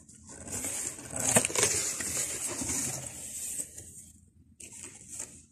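Rustling and crinkling of packaging being handled: one long spell, then a short second one near the end.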